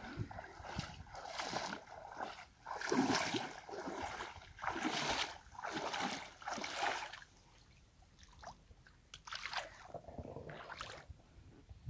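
Shallow river water splashing and sloshing around the legs of a man wading and hauling in a fishing net, in surges about a second apart, dying down after about seven seconds with a few more splashes near the end as he gathers the net.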